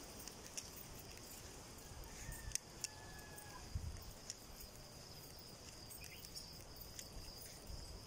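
Faint outdoor ambience: a steady high-pitched insect buzz, with a few scattered light clicks.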